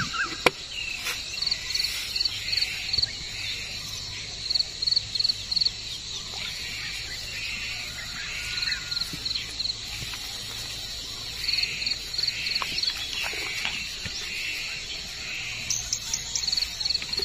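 Small animals calling in a chorus: runs of short, high chirps, about half a dozen at a time, repeating every second or two. Faint rustles and light knocks come from a mesh shrimp trap being shaken out into a plastic bucket.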